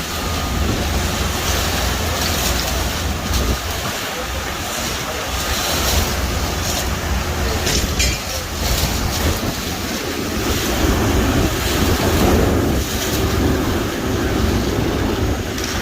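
Concrete pump truck's engine running, a steady low rumble under a constant rushing noise.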